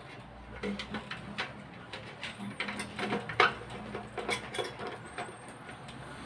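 Scattered light clicks and taps of hands handling the parts and wiring inside an open rice cooker base and shifting its housing, with the sharpest knock about halfway through.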